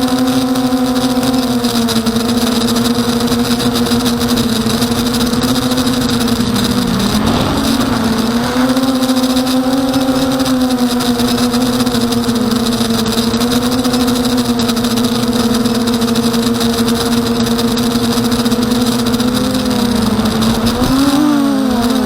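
Emax Nighthawk 250 quadcopter's brushless motors and propellers buzzing steadily in flight, the pitch dipping and wavering briefly about seven seconds in and again near the end as the throttle changes.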